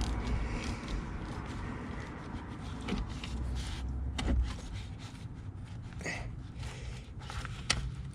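Scattered metallic clicks and knocks of a hand tool working the Jeep's battery terminal loose to disconnect the battery.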